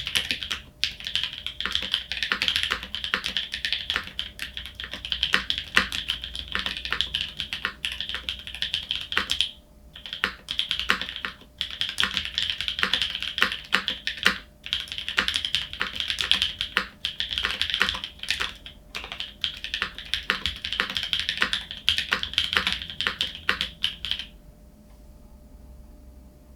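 Typing on a polycarbonate tenkeyless mechanical keyboard with NovelKeys Cream linear switches and GMK keycaps: a fast, dense stream of keystrokes with a couple of brief pauses, stopping about 24 seconds in.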